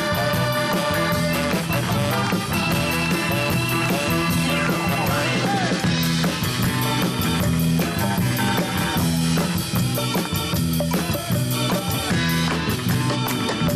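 Upbeat pop song with a steady beat on drum kit and guitar, playing without a break.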